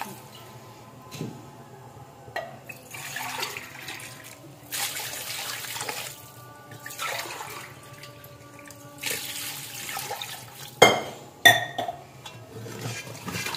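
Water poured from a glass into a cooking pot of fried mutton, in several separate pours with pauses between them. Near the end come two sharp knocks, the loudest sounds here.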